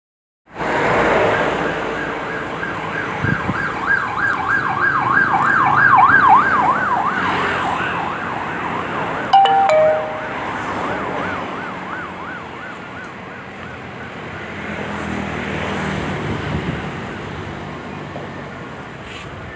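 Electronic siren on a rapid warble, its pitch sweeping up and down about three times a second. It is strongest early on and fades away over the next several seconds. A short two-note beep, high then lower, sounds about halfway through.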